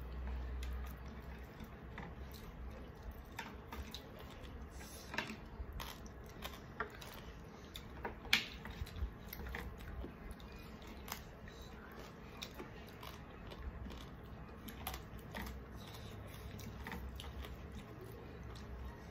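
People eating rice and curry with their fingers from plastic plates: chewing and fingers working the food, with scattered small clicks. The sharpest click comes about eight seconds in.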